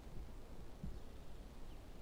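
Faint low rumble of wind buffeting the microphone, with a soft thump about a second in.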